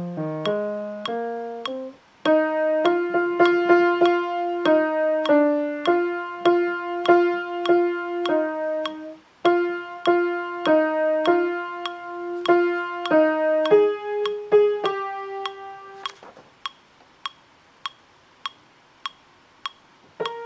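Electric or acoustic piano playing a choir part-learning track in chords, over a steady click track of about two clicks a second. The piano drops out briefly twice, then stops about 16 seconds in, leaving only the clicks.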